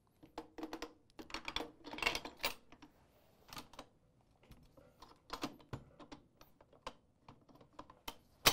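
Metal parts of an M2 heavy machine gun clicking and rattling as a master barrel gauge is fitted into it: a dense run of clicks for the first two or three seconds, then scattered single clicks, and one sharp loud click at the very end.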